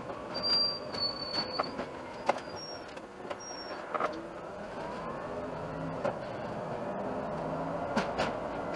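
An Iveco Urbanway city bus driving, heard from inside and sped up. In the first few seconds there are rattles, clicks and a few short high beeps. From about halfway through, the running noise grows steady and slowly louder as the bus gathers speed.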